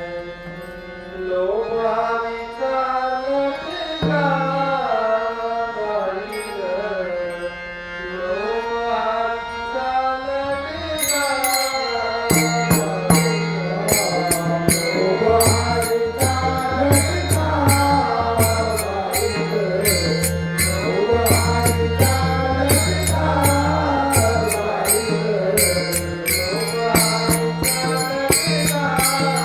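Male devotional singing of a Varkari bhajan, a free-flowing melodic line over steady held accompaniment. About eleven seconds in, hand cymbals start a fast, steady beat, and a deep drum soon joins.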